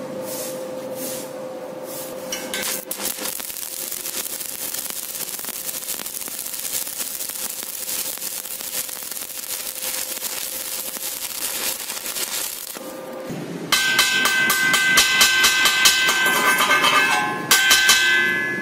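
Stick (arc) welding on steel, the electrode arc hissing and crackling steadily for about ten seconds. After a short break comes a louder stretch of rapid metal-on-metal strikes with ringing, typical of slag being chipped off the fresh weld, with a second short burst near the end.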